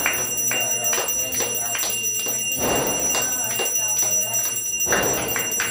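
Small brass puja hand bell rung continuously during an aarti, with voices singing along.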